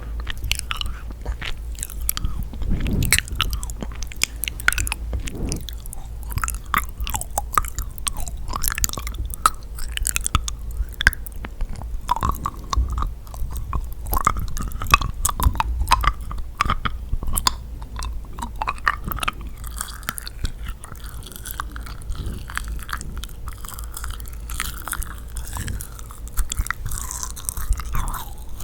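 Close-miked chewing of sticky yakgwa, the Korean honey-fried cookie: continuous wet, tacky mouth sounds with many small sharp clicks and crunches.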